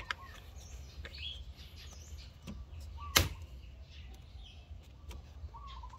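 Sparse bird chirps over a low steady hum, with one sharp click about three seconds in.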